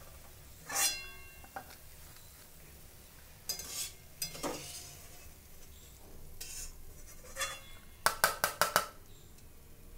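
A spoon scraping and clinking against a ceramic plate while stirring and spreading crisp fried onions, in scattered short strokes, then a quick run of about six sharp clinks near the end.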